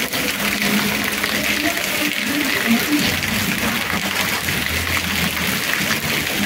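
Heavy rain falling steadily on a paved street, a dense even hiss of drops. A low rumble comes in underneath about halfway through.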